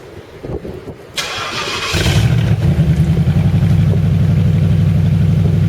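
A freshly rebuilt Ford Crown Victoria V8 catches about two seconds in, after a short rush of noise, and then keeps running steadily with an even pulse while the throttle is held open a little.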